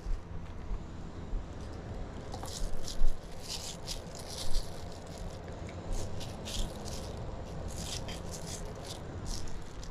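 Food-stall serving sounds: short irregular clattering and scraping of utensils and bowls over a steady low background hum.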